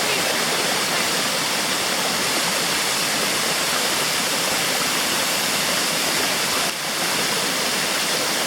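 Rushing water of a mountain river and its waterfall: a loud, steady, even rush with no break.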